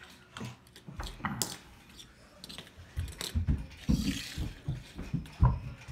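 Plastic Lego minifigures and their stands being set down on a wooden table: a string of small clicks and knocks, with duller thumps in the second half, the loudest near the end.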